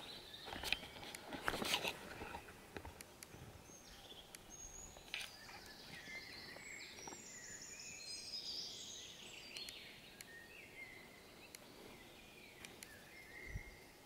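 Faint wild bird calls and song, a run of short chirps and whistles starting about four seconds in and going on to near the end. A few clicks and rustles in the first two seconds.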